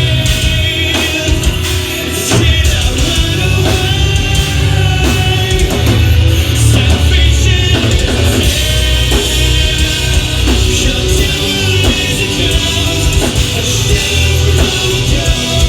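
Loud rock music with drums, guitar and singing.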